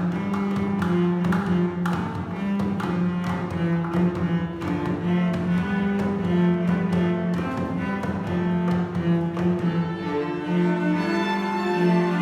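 Violins and cellos playing a Colombian traditional rhythm, with sustained bowed notes over sharp, regular percussive taps that stop about ten seconds in.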